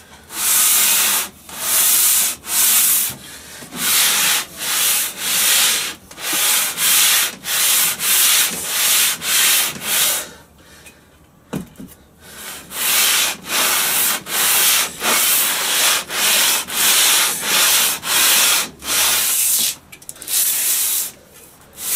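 Cast-iron sole of a Stanley Bailey No. 7 jointer plane being lapped flat on adhesive sandpaper over plate glass: a rasping scrape with each push and pull, about two strokes a second, with a short pause about halfway through.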